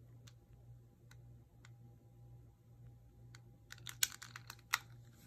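Small plastic clicks from a long-nosed utility lighter being used to light a candle: faint scattered ticks, then a short cluster of sharper clicks about four seconds in, over a low steady hum.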